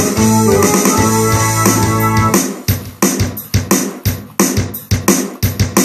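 Ensoniq SD-1 synthesizer played live: held chords over a bass line, then about two seconds in the playing changes to short, sharp staccato hits that die away quickly, two or three a second.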